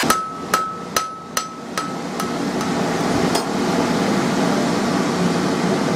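A hand hammer strikes a glowing bar of mild steel on an anvil about seven times, roughly two blows a second, each blow ringing. The last blow lands a little after three seconds in, and a steady rushing hum follows.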